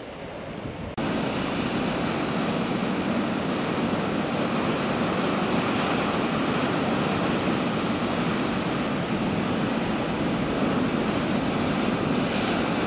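Sea surf washing against rocks, mixed with wind, as a steady rushing noise that jumps suddenly louder about a second in.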